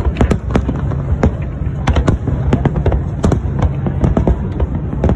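Aerial fireworks display: many sharp bangs and crackles from shells bursting in quick, irregular succession over a dense low rumble.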